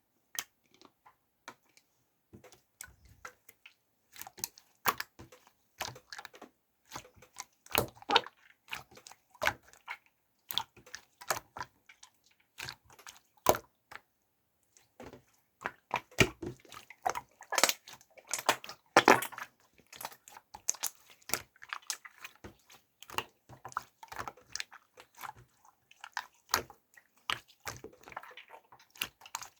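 Irregular wet, sticky clicks and squishes of a soft material being worked by hand, with a brief pause about halfway through.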